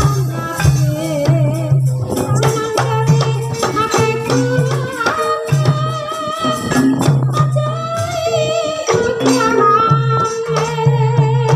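Live Javanese gamelan music accompanying an ebeg hobby-horse dance: a repeating low note and jingling, struck percussion, with a singer's wavering melody over the top.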